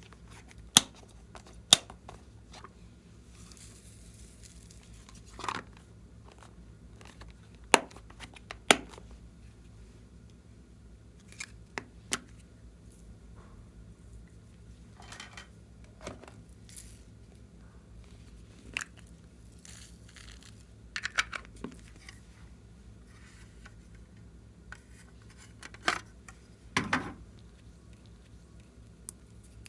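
Clear slime being worked by hand, giving scattered sharp clicks and pops, with a few short crackling squishes between them.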